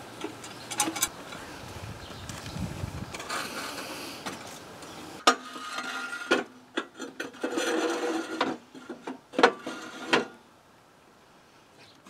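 Clinks and knocks of steel stove parts and chimney pipe being handled and fitted together. There is a sharp knock about five seconds in, then a run of clicks and clanks.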